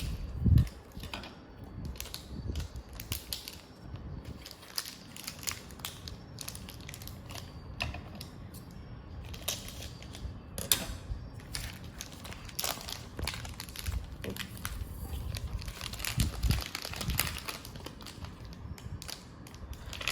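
A chocolate bar's wrapper being opened, with irregular crinkling and crackling as it is handled and torn.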